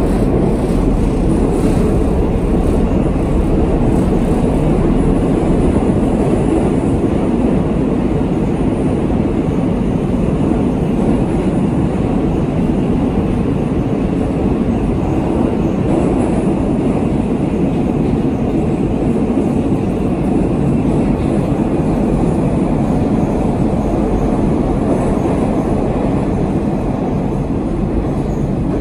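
Minsk Metro train running between stations, heard from inside the carriage: a loud, steady noise of wheels on rails and motors.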